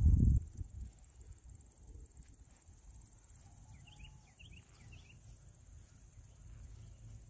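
Steady outdoor insect chorus, a high pulsing trill that runs on without a break. A bird chirps a few quick notes about four seconds in, and a brief low rumble hits the microphone at the very start.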